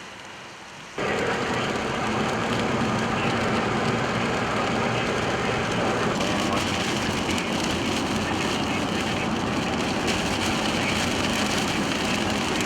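Loud, steady road and wind rush of a moving car, which jumps up suddenly about a second in.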